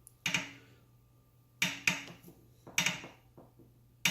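Wahoo Kickr (2018) indoor bike trainer's flywheel turning, with a sharp creak repeating about once a second over a faint steady hum. The creak comes from a flywheel key slightly undersized for its slot.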